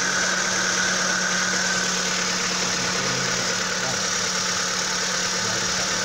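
Kia car engine idling steadily with a ticking noise, the tick-tock that sounds for about a minute after a cold start in the morning.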